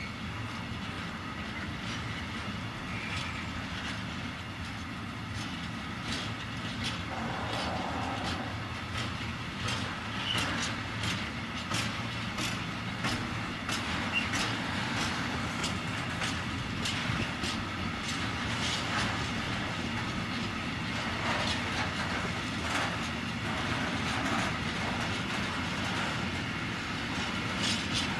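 Empty container flat wagons of a freight train rolling past, their wheels clicking over the rail joints in quick uneven runs over a steady rumble.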